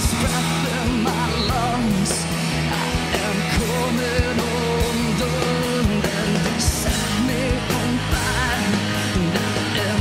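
Rock-style worship song with a sung vocal line over a full band and a steady drum beat.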